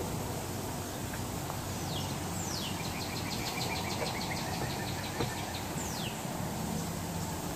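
Backyard summer ambience: birds singing, with a few falling whistled notes and a rapid trill of evenly spaced notes lasting a few seconds, over a steady background hiss and a faint low hum.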